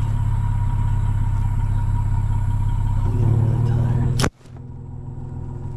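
Vehicle exhaust idling right at the tailpipe: a steady low drone with rapid exhaust pulses that swells slightly about three seconds in. About four seconds in, a sharp click cuts it off, leaving a much quieter steady hum.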